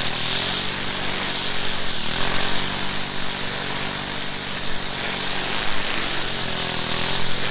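Stihl FS 190 R two-stroke string trimmer running at high throttle while cutting weeds. The revs dip briefly and pick back up a few times, about two seconds in and again near the end.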